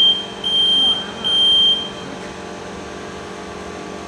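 WDS-620 BGA rework station's buzzer beeping three times, each a steady high beep about half a second long, within the first two seconds, over a steady machine hum.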